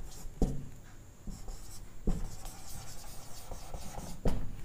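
Whiteboard marker writing letters on a whiteboard: light scratchy strokes, with a few sharper ticks as the tip meets the board.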